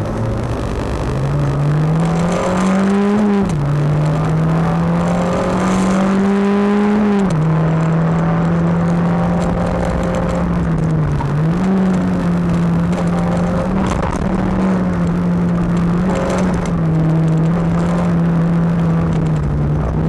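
Skoda Fabia race car's engine heard from inside the cabin, pulling under load: its note climbs slowly and drops sharply at gear changes about three and seven seconds in, then holds a steadier pitch with a brief dip near the middle.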